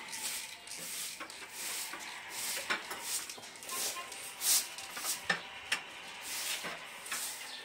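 Short-handled straw broom sweeping a carpeted floor: a run of uneven brushing swishes.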